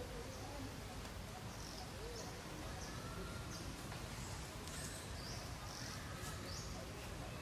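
Quiet outdoor woodland ambience: a steady low rumble and hiss, with short high chirps repeating about every half second.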